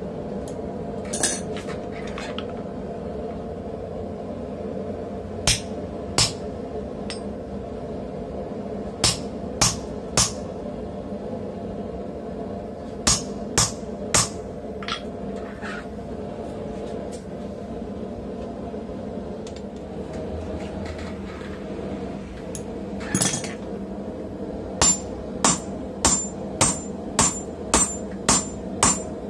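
Hand hammer striking a short hammer-eye punch held in a punch tong, driving it into a glowing hot steel block on a small anvil: sharp ringing metal blows, a few scattered strikes at first, then a quick run of about eight at roughly two a second near the end, over a steady background hum.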